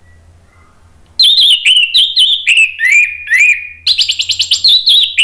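Orange-headed thrush singing loudly, starting about a second in with a string of quick, sweeping notes. After a short break near the end it goes into a faster run of notes.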